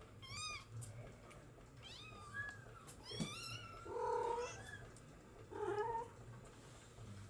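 Bengal kittens mewing: about four short, high-pitched, wavering mews in the first few seconds, then two lower and louder meows, about four and six seconds in.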